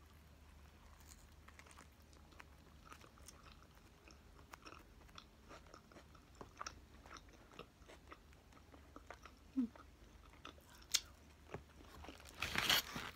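Close-up chewing of a mouthful of double cheeseburger: soft, irregular wet clicks and smacks. A brief, louder rustle comes near the end as a hand goes to the foil wrapper.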